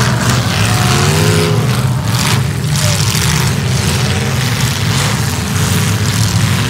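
Several demolition derby cars' engines running hard together, loud and continuous, with the pitch rising and falling as they rev.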